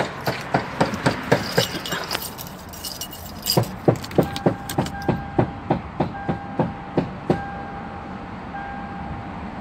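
A car that will not start being tried at the ignition: a run of sharp clicks, about three a second, with a pause in the middle, and an electronic dashboard warning beep sounding on and off from about four seconds in.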